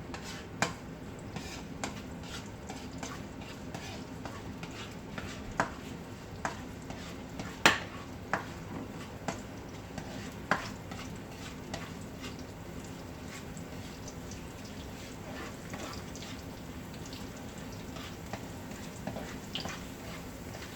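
Garlic frying in hot oil in a pan, a steady sizzle, while a utensil stirs it and knocks against the pan every second or so, the sharpest knock about eight seconds in.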